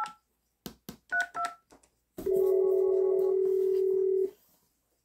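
The last few touch-tone (DTMF) digits keyed on a telephone, with a couple of short clicks, then a steady telephone ringback tone for about two seconds: the call to the freshly repaired line going through and ringing.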